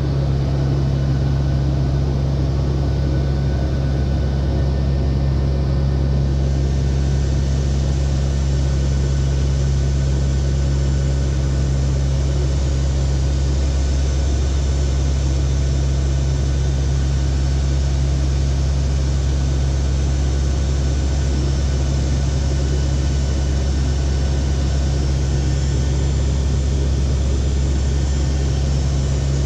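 Steady drone of a Lockheed WP-3D Orion's four turboprop engines heard from inside the cockpit in flight: a deep, unchanging hum under a constant rushing hiss.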